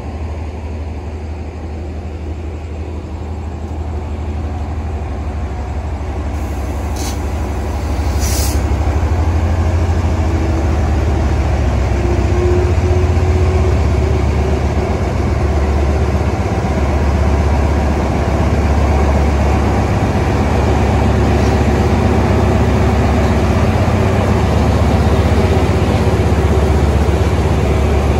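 Diesel locomotive engine running with a deep hum, growing louder through the first eight seconds and then holding steady, after its brakes have been released for departure. Two short hisses of air come about seven and eight seconds in.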